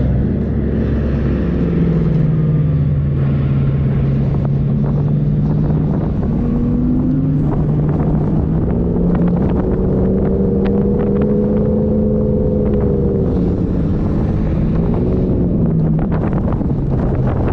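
A 4x4's engine driving on desert sand, its note holding, then rising and falling as the throttle changes, with wind on the microphone. Scattered short knocks and rattles in the second half.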